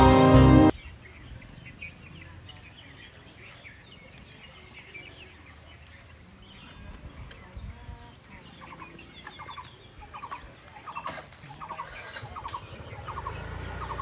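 Background music cuts off abruptly within the first second. It leaves quiet outdoor ambience with faint bird chirps. From about eight seconds in, a bird gives a short call repeated about twice a second.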